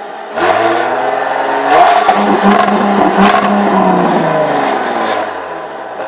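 Jaguar F-Type V6 S's supercharged 3.0-litre V6 revved from idle through its twin centre exhaust tips: the revs climb, hold high for a couple of seconds with a few sharp cracks, then fall back to idle.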